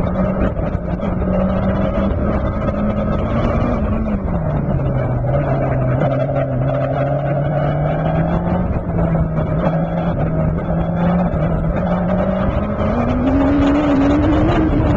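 Turbocharged Suzuki Hayabusa inline-four engine of a Dax Rush, heard from the open cockpit, running at low revs as the car rolls along. The engine note drops about four seconds in, holds low, then climbs gradually near the end.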